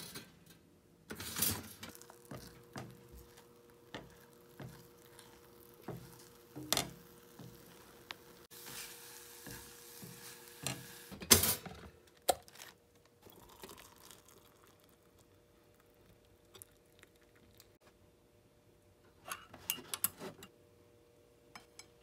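Breakfast being cooked: scattered clinks and knocks of utensils on a frying pan and dishes, a few seconds of sizzling hiss, and one sharp loud clack about eleven seconds in, over a faint steady hum.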